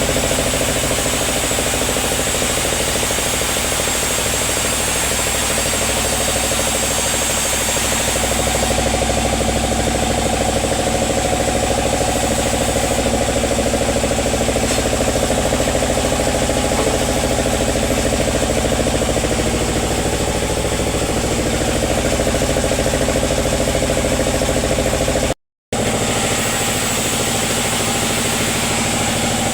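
Sawmill engine running steadily, with a brief break about 25 seconds in.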